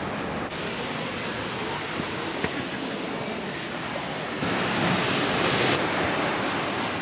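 Sea surf breaking on a rocky shore: a steady rushing wash of waves, growing louder about four seconds in.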